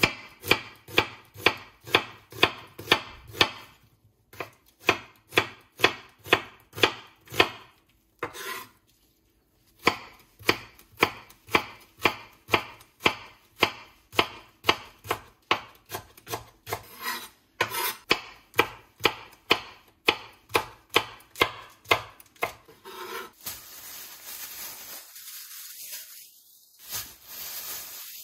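Chef's knife chopping onion and then green onion on a wooden cutting board, with sharp, even strokes about two a second and a brief pause about a third of the way in. Near the end the chopping stops and a plastic bag rustles.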